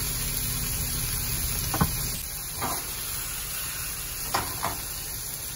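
Small pieces of steak sizzling steadily in a frying pan over a gas camp stove burner, with about four sharp clicks of chopsticks against the pan.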